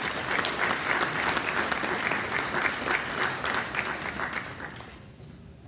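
Audience applauding: many hands clapping at once, dying away about five seconds in.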